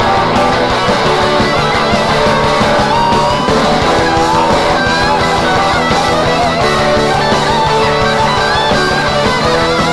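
Live rock band playing loudly: an electric guitar lead with bending notes over bass and drums.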